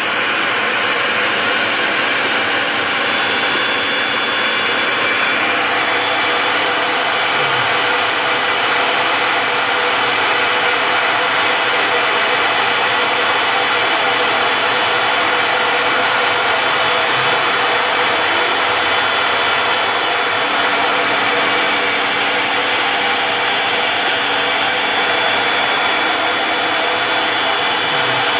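CNC Tensilkut III's spindle running a two-flute bit through poplar, milling out a tensile specimen: a loud, steady whine over constant cutting noise.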